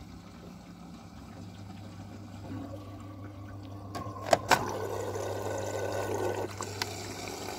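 Old Samsung front-load washing machine taking in water for its final rinse: a steady rush of water through the detergent drawer into the drum, over a low hum. Two sharp knocks come about four seconds in, followed by a louder water rush for about two seconds.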